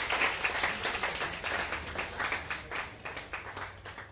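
Small audience applauding, the clapping thinning out into scattered single claps and fading away.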